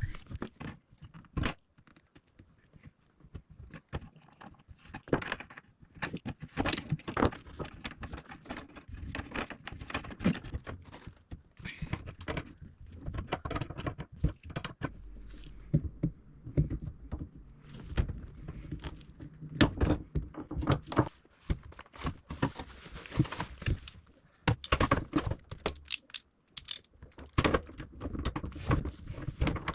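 Irregular metallic clinks, knocks and rattles of hand tools and faucet parts being worked loose to remove an old kitchen faucet.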